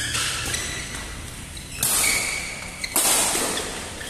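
Badminton rackets striking the shuttlecock in a fast doubles rally: three sharp hits roughly a second apart, each trailing off in the echo of a large hall.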